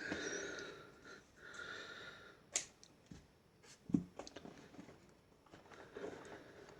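Faint handling sounds as black electrical tape is worked onto a lighter display case, with two sharp taps about two and a half and four seconds in.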